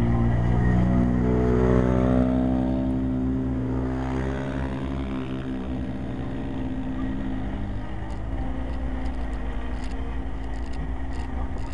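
Vehicle engine running while driving on a dirt road. It revs up over the first couple of seconds, then eases off to a steady drone over a low road rumble, with a few light clicks near the end.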